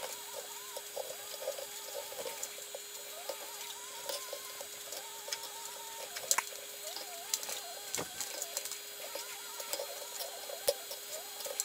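Chickens clucking faintly and repeatedly, over a steady low hum, with a few soft clicks.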